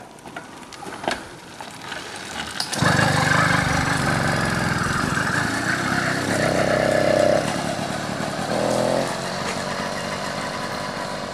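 Small two-stroke bicycle engine kit (66cc) catching with a few clicks first, then running steadily from about three seconds in as the bike rides off. It gets louder in two short spells around the middle and quieter near the end.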